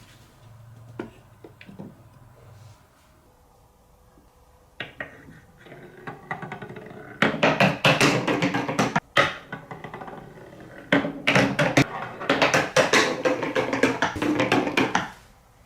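Marbles rolling and clattering down a TrixTrack wave-slope marble run. A few scattered clicks come first, then two long stretches of dense rattling, and the second stops abruptly near the end.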